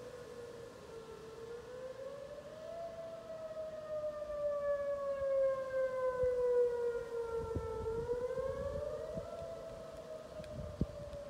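Whelen outdoor warning siren sounding its wail tone. The pitch slowly slides down and back up, and several fainter tones follow the same glide above it. The sound swells in loudness through the middle.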